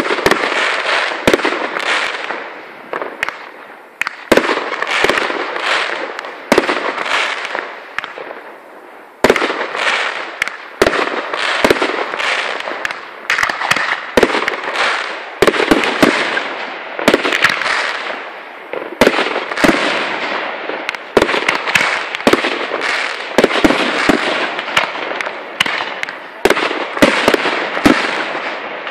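Aerial fireworks display: a rapid, continuous series of shell bursts, with sharp bangs every second or two, each trailing off into a crackling hiss of glittering stars.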